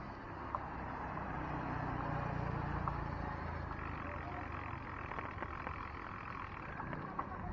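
Steady rumble of wind on the microphone and road noise while cycling, swelling a little about two seconds in.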